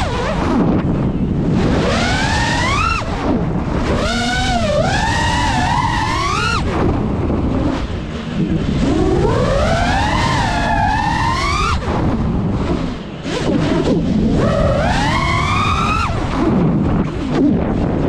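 FPV racing quadcopter's motors whining, the pitch sweeping up and down in repeated swoops as the throttle is pushed and cut through dives and turns, over a steady rumble of wind.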